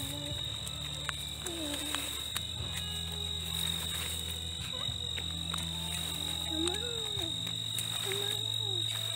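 Night insects, crickets by their sound, trilling in one steady high-pitched tone, with a low steady hum underneath.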